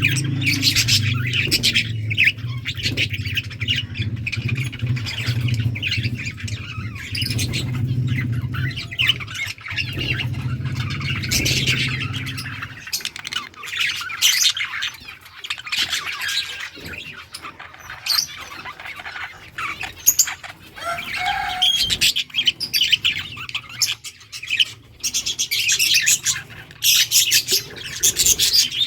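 Several budgerigars chirping and chattering without pause in quick, high twitters, over a low steady hum that stops about halfway through.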